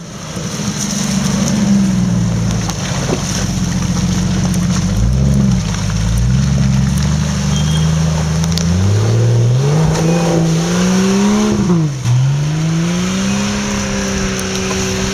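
Off-road 4x4's engine revving under load in a muddy creek, its pitch rising and falling as the throttle is worked, with a sharp drop about twelve seconds in before it climbs again.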